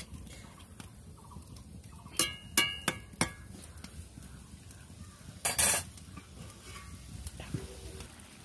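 Metal spatula clinking and scraping against a metal kadai while a vegetable curry simmers, with a few sharp strikes that ring briefly about two to three seconds in and a louder scrape about five and a half seconds in.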